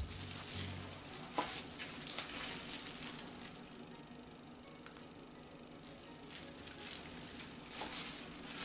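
Crinkling and rustling of a thin plastic disposable glove against a plastic cup as acrylic paint is layered into the cup, coming in bursts, with a couple of light knocks.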